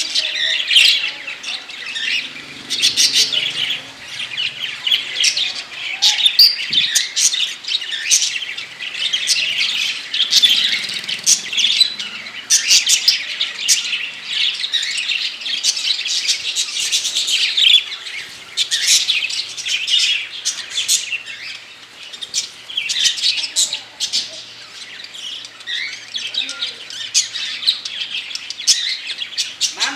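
A flock of small pet parrots (budgerigars and cockatiels) chirping and chattering continuously, many rapid high-pitched calls overlapping.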